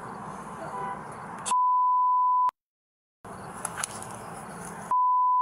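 Two censor bleeps, each a steady single-pitch beep about a second long, used to redact the body-camera audio. The first comes about a second and a half in and the second near the end, and each is followed by a short dead silence where the sound is muted. Between them is the faint open-air noise of the body-camera microphone.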